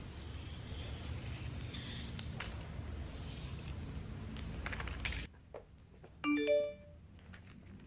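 Clear plastic book-cover film rustling as it is smoothed and handled, over a steady low hum that cuts off abruptly about five seconds in. About a second later comes a short chime of three quick notes stepping upward, the loudest sound, followed by a few faint clicks.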